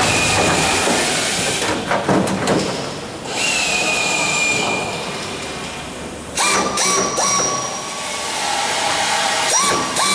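Pneumatic air drill running in several short bursts of a steady whine over an air hiss, drilling out rivets to free an aircraft skin panel. Metal knocks are heard between bursts, around two seconds in.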